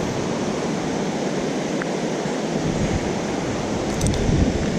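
Steady rushing of stream water, with a low rumble on the microphone from about halfway through.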